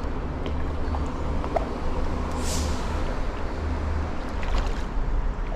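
A hooked bass being reeled in and landed on a rod and reel. A steady low rumble runs throughout with a few light clicks, and a brief splash comes about two and a half seconds in.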